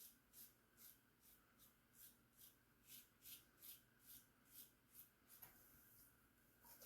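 Faint scraping of a Gem Junior single-edge safety razor cutting stubble in short, regular strokes, about two a second, on a cleanup pass.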